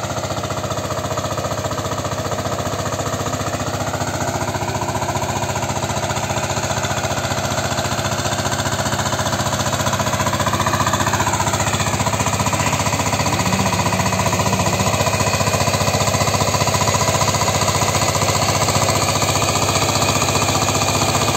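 VST Shakti 130 DI power tiller's single-cylinder diesel engine running steadily under load with a rapid, even beat as it pulls a ridging plough through the soil. It grows a little louder as the tiller comes closer.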